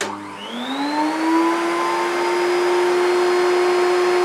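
Hitachi Stowaway CV7405 bagless cylinder vacuum cleaner switched on with a click, its motor spinning up with a rising whine over the first second or so, then running at a steady pitch with a rushing hiss of air. This is the first test run of the secondhand machine, and it sounds very quiet to its owner.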